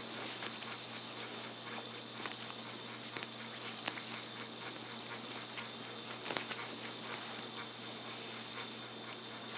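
A kitten pouncing and scrabbling on a bed comforter: a light patter and rustle of paws and claws on fabric, with scattered small clicks and a sharper one about six seconds in. A steady low hum runs underneath.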